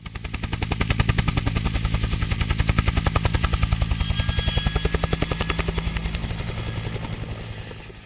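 Helicopter rotor beating in a fast, even pulse. It swells up over the first second and slowly fades away toward the end.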